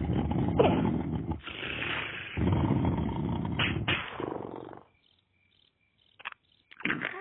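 Cartoon snoring sound effect: loud, rough snores one after another, stopping about five seconds in. A few short sounds with quick pitch slides follow near the end.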